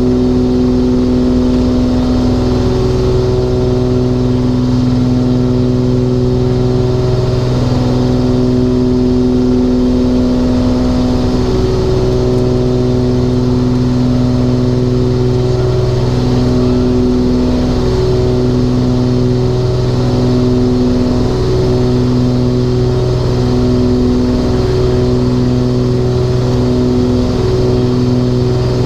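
The twin Continental 520 piston engines of a Cessna 414 Chancellor running at a steady power setting, a loud, even drone. In the second half the drone pulses in a slow, regular beat, about once every second and a half.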